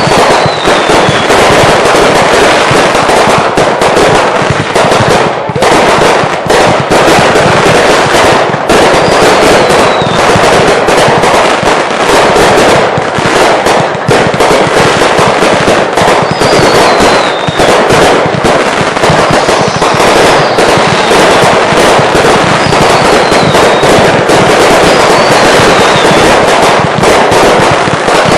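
Consumer fireworks finale: a dense, continuous barrage of bangs and crackling, with several short whistles that fall in pitch scattered through it.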